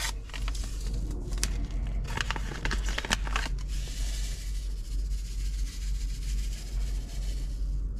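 Paper seed packet rustling and crinkling as celery seeds are tapped out of it onto a tray of seed compost. A quick run of small crackles and ticks fills the first half, then a soft steady hiss follows, over a low steady hum.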